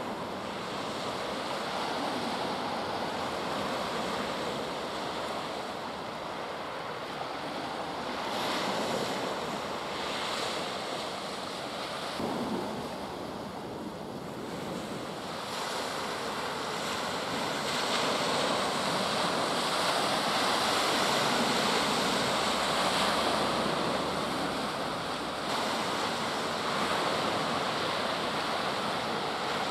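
Sea waves washing onto the shore, swelling and easing every few seconds, with wind blowing on the microphone.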